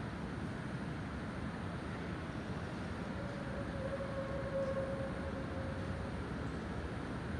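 An unidentified horn-like tone, held steady at one pitch for about three seconds from about three seconds in, over a constant low rumble.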